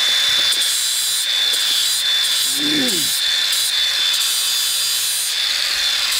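Angle grinder running steadily with its disc grinding against a steel bolt held in locking pliers, cutting the end off the bolt to make a thread chaser. It makes a continuous high-pitched motor whine over a hissing grind.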